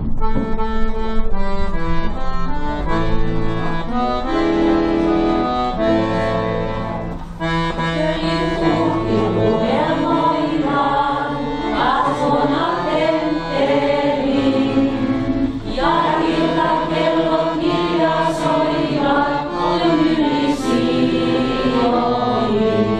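Melodiosa chromatic button accordion playing a hymn tune solo, with held melody notes and chords over steady bass notes.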